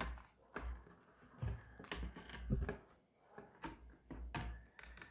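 Hands handling and prying at the plastic and metal parts of a steelbook case: irregular clicks, taps and light scrapes, with low bumps of handling noise.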